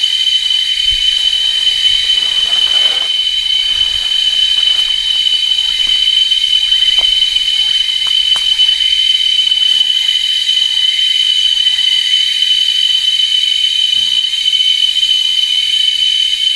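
Steady, loud drone of a tropical rainforest insect chorus: several high pitches held without a break. A brief faint call rises and falls about three seconds in.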